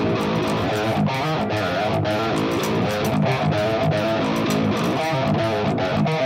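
Ibanez electric guitar playing a riff of quickly picked notes, the pitches changing several times a second with sharp picking attacks.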